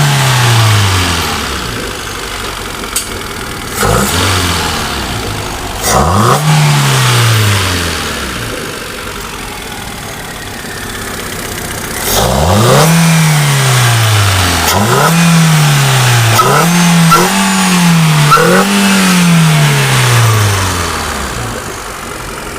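Car engine revved in repeated short blips, about seven times: each time the note climbs quickly and falls back slowly to idle. A quieter stretch lies between the second and third groups of blips.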